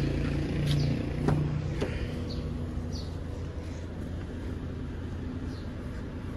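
A car's engine idling, a low steady rumble, with a few sharp clicks in the first two seconds.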